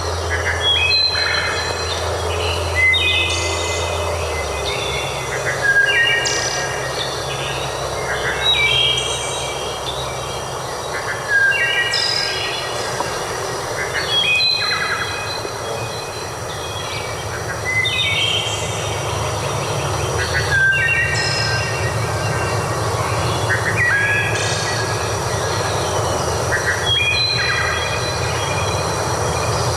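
A songbird repeating a short phrase of falling stepped notes about every three seconds, over a steady rushing background noise.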